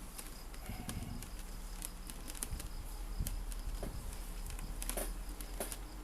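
Scattered small clicks and taps from handling plastic speakers and their cables, over a steady low electrical hum and faint background insect chirping.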